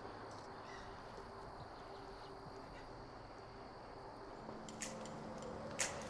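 Faint outdoor ambience: a steady high insect drone, with two short sharp clicks near the end.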